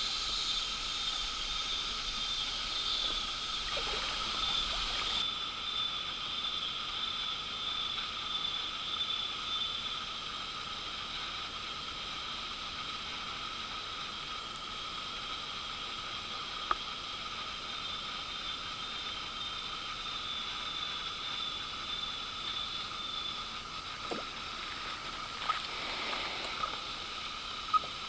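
Rainforest ambience: a steady high drone of insects, with a thin high trill that drops out for a while after about ten seconds and returns, and a sharp click past halfway and a couple more near the end.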